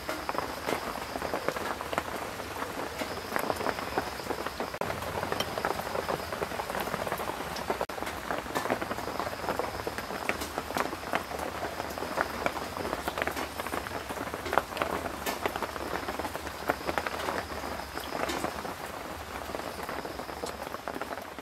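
Steady rain falling on surfaces, with many close drops ticking, and a faint high tone that comes and goes above it.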